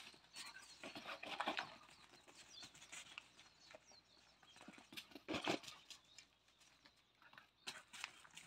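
Faint sounds of dogs and puppies moving about on a dirt yard: scattered scuffs and patters, stronger about a second and a half in and again around five seconds, with a few brief high chirps.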